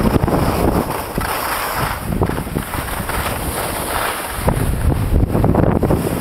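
Wind buffeting the microphone of a camera carried by a skier moving downhill, with skis scraping and chattering over packed snow.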